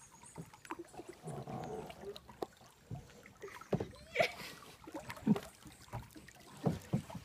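Kayak paddles dipping and pulling through slow river water, with a scatter of irregular short splashes and light knocks.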